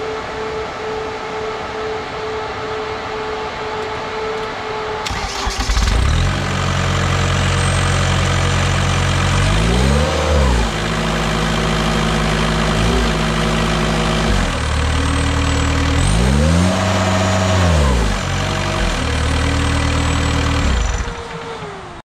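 Cat 242B skid-steer's diesel engine: after a steady high hum, it starts about five seconds in, settles into a steady run, is revved up and back down twice, and winds down as it is shut off near the end.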